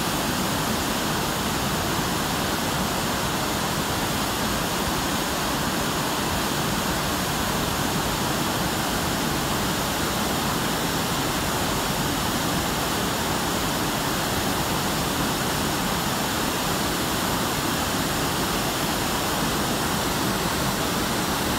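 Steady rush of river water spilling over a low concrete weir into white water below.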